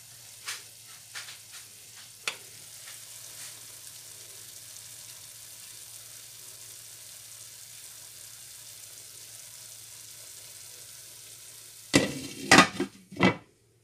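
Vegetables and eggs sizzling gently in a stone-coated sauté pan: a steady soft hiss, with a few light ticks in the first couple of seconds. About twelve seconds in, a glass lid comes down onto the pan with several sharp knocks.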